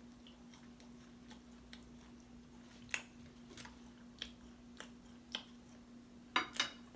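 Someone eating barbecue ribs close to the microphone: scattered sharp mouth clicks and smacks while chewing, the loudest a pair near the end, over a faint steady hum.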